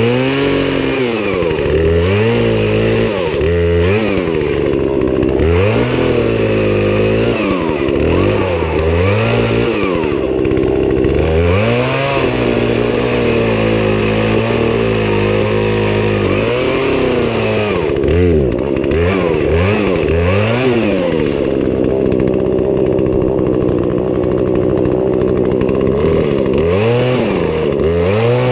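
Poulan Pro two-stroke chainsaw running, its engine revved up and let back down again and again, with two longer stretches held at high speed.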